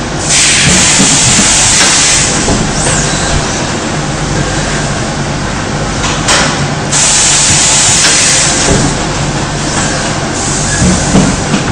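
Pneumatic press of a high-frequency shower-curtain welding machine cycling, with bursts of compressed-air hiss over a steady machine hum. A long hiss comes just after the start, a short one about six seconds in, and two more about seven and ten seconds in.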